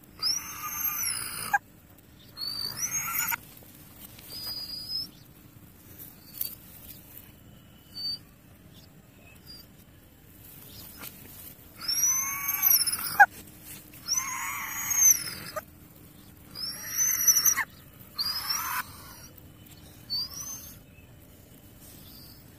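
Injured dog crying out with high-pitched, arching yelps of about a second each, about eight in two bouts with a quieter gap in the middle.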